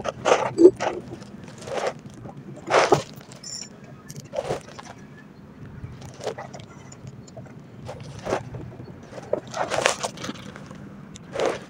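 Scattered knocks, clacks and rustles of fishing rods and spinning reels being handled and set down on a wooden raft deck, irregular and a second or two apart, over a low steady hum.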